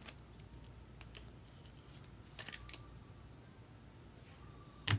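Trading cards and their packaging being handled, heard as faint scattered clicks and rustles, with one sharp click near the end.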